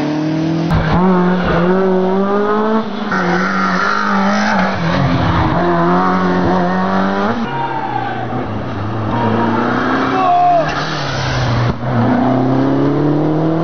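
Rally car engines revving hard through corners, the pitch climbing steeply and dropping again with each gear change and lift, over and over. The sound breaks off abruptly several times as one car's pass cuts to the next.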